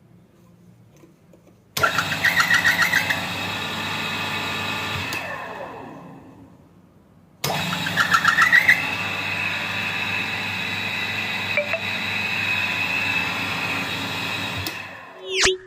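A vehicle engine is started twice. Each time a brief crank catches and the engine runs steadily. The first run dies away after a few seconds; the second runs about seven seconds before cutting off.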